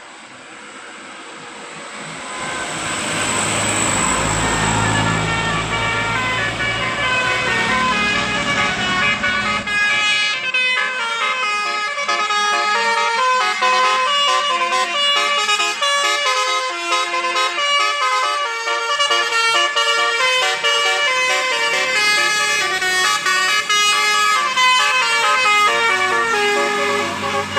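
Indonesian 'telolet' bus horn playing a fast multi-note melody, starting about ten seconds in. Before it, vehicle engine noise swells up.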